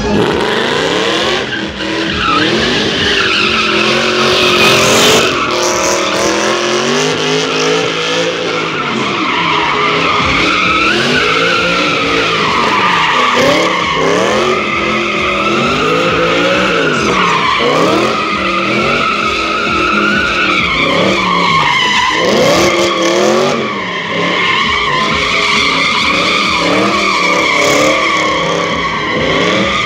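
BMW E39 M5's V8 revving up and falling back over and over, every second or two, while its rear tyres squeal without a break as the car drifts in tight circles.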